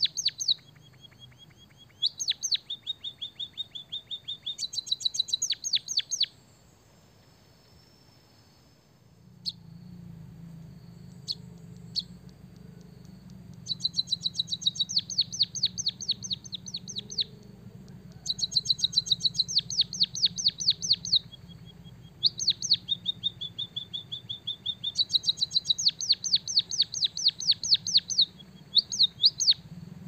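White-headed munia singing a song filled with canary-style phrases: bursts of rapid, high chirping trills a few seconds long, some with a short held whistle, separated by pauses, with a longer break of about three seconds near the start.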